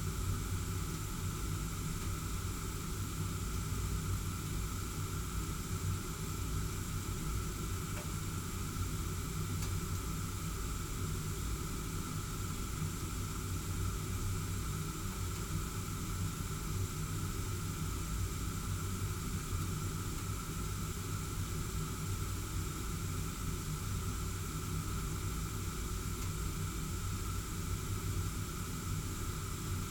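Gas heating burner running steadily, the flame giving a constant roar with a low hum, and a faint tick about eight seconds in.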